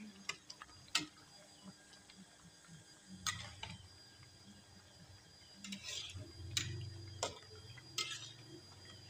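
A metal spoon stirring a thick vegetable soup in a metal pot, clicking and scraping against the pot every second or so. A low hum runs through the second half.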